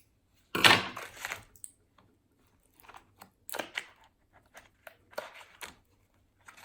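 Slime being squished and stretched by hand, giving irregular crackly, squelchy bursts, the loudest about half a second in.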